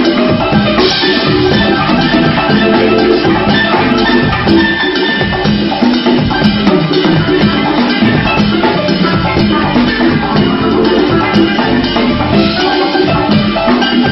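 Live band music: a drum kit and percussion playing continuously along with pitched instruments.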